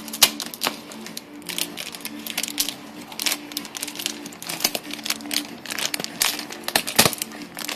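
Clear plastic packaging crinkling and crackling while scissors snip into it, a rapid, irregular run of sharp clicks and rustles.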